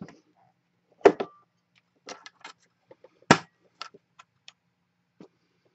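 Two sharp knocks of small objects handled and set down on a wooden work board, about a second in and again about three seconds in, with light clicks and rustles between.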